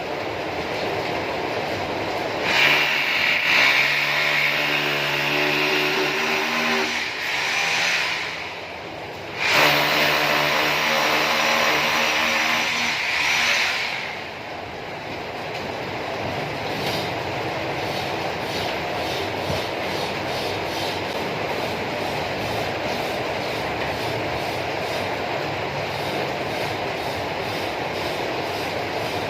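A small motor runs twice, each time for about four seconds with a steady pitch and a bright hiss over it, then gives way to a steady noise.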